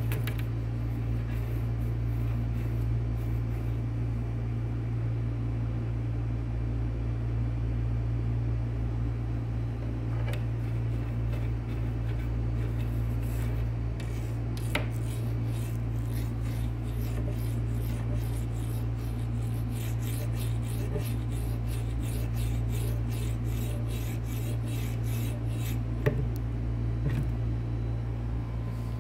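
Steady low hum with rubbing and scraping noises over it. A run of quick, scratchy clicks starts about halfway through and fades near the end.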